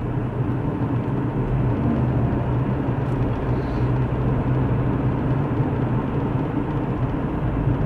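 Car cabin noise while driving: a steady low engine and road drone with tyre hiss.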